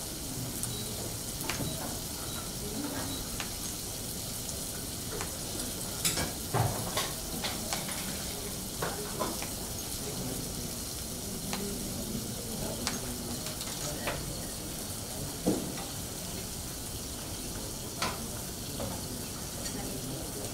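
Diced vegetables sizzling steadily in a frying pan, with scattered sharp taps of a knife through zucchini onto a plastic cutting board, several close together about six to eight seconds in.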